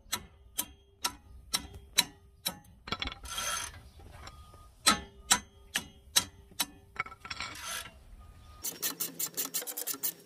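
Hand ratchet clicking as it is worked back and forth on a brake caliper bracket bolt, about two clicks a second, with two brief scraping rubs between them. Near the end comes a quick run of clicks, about eight a second.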